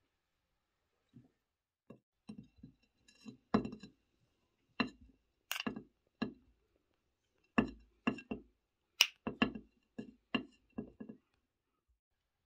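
Metal spoon clinking and scraping against a glass jar while crumbly food is dug out and tipped onto a ceramic plate: a string of sharp, irregular clinks.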